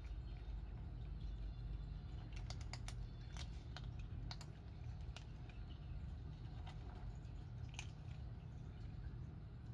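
Two cats crunching dry kibble: irregular sharp crunches and clicks, thickest a few seconds in and sparser after, over a steady low rumble.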